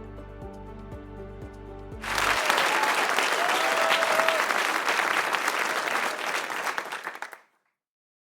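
Music with a steady low beat for about two seconds, then a loud burst of crowd applause with a short whistle in it, which cuts off suddenly a second before the end.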